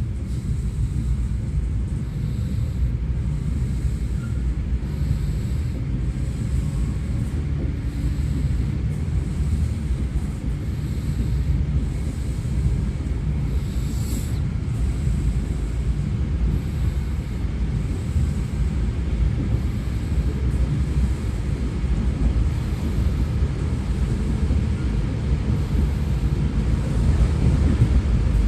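Steady low rumble of a moving suburban electric train heard from inside the carriage: wheels running on the rails, with a brief hiss about halfway through.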